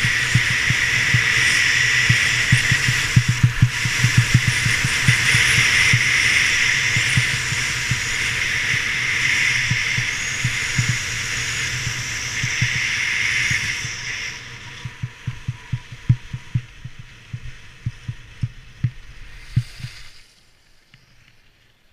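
Wind rushing over an action camera's microphone and skis hissing on packed snow during a fast downhill run, with irregular low buffeting thumps. The rush drops off sharply about two-thirds of the way through as the skier slows on the flat, and fades almost to nothing near the end as the skier comes to a stop.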